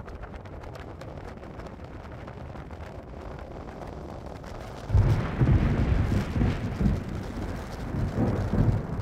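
A low steady rush of noise, then about five seconds in a sudden loud clap of thunder that rolls on as a deep rumble in several surges.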